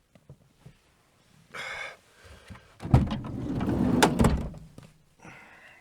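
Berlingo campervan door being unlatched and opened: a sharp click about three seconds in, then over a second of low rumbling movement ending in another sharp knock.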